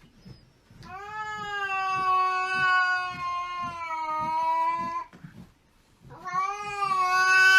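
A cat yowling in two long, drawn-out calls. The first lasts about four seconds; the second begins about six seconds in.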